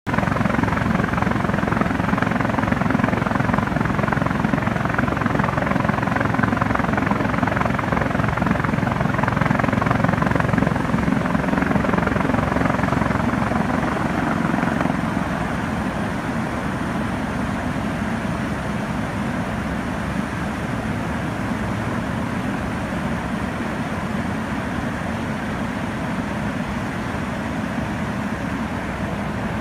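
Steady in-flight noise of helicopter rotor and turbine engines, from an H225M Caracal flying close by; the level eases slightly about halfway through.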